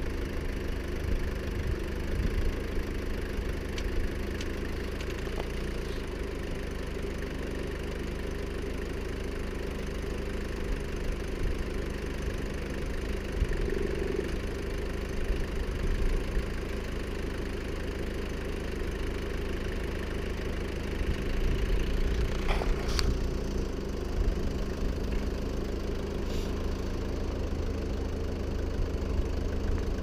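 The Mercedes-Benz 2.0-litre engine of a homemade tractor-mounted backhoe running steadily while the backhoe digs. A few short sharp knocks come about two-thirds of the way through.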